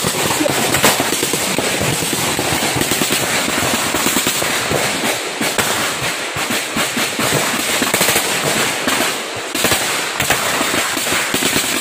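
Gunfire: a dense, sustained crackle of many shots in quick succession.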